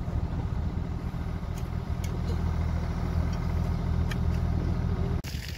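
A motor engine running steadily at idle, a low hum, with a few faint ticks over it; it cuts off abruptly near the end.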